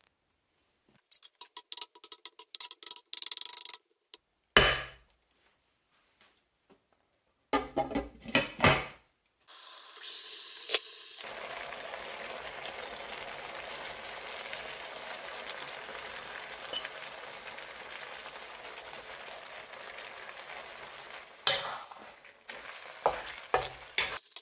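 Stir-fry sizzling in a non-stick pan, a steady hiss from about ten seconds in. Before it come scattered clinks and knocks of utensils and a metal pot against the pan, the loudest a sharp knock about four seconds in. A few more knocks come near the end as noodles are stirred with a wooden spatula.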